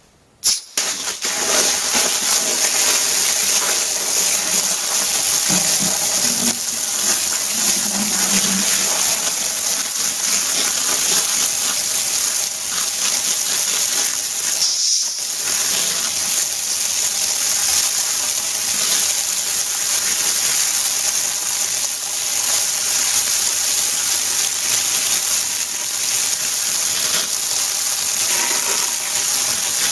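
High-pressure water jet blasting against a paper hornet nest and the shed wall: a steady loud hiss and splatter that starts suddenly about half a second in and breaks off briefly around halfway through.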